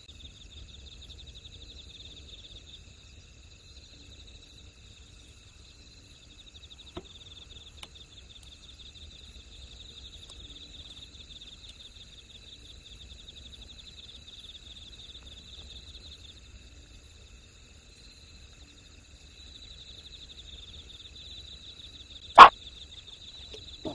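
Night insects chirring steadily in a high, fast-pulsing trill, with one loud, sharp knock near the end.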